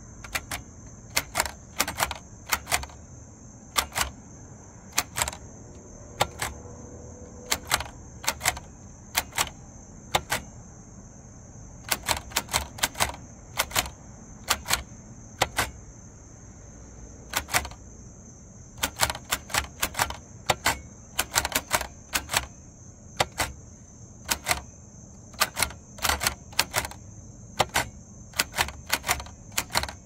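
1945 Hermes Baby portable typewriter being typed on: sharp type-bar strikes come irregularly, singly and in quick runs of a few keys, with pauses of a second or two between. A steady high-pitched drone runs behind.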